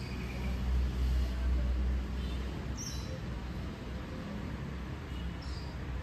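Outdoor ambience: a steady low rumble, strongest in the first two seconds, with a few faint bird chirps, a short one about three seconds in and another near the end.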